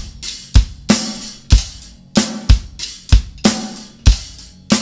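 Acoustic drum kit played with sticks: a driving punk-rock beat of bass drum and snare strikes about every half second, with cymbals ringing over them.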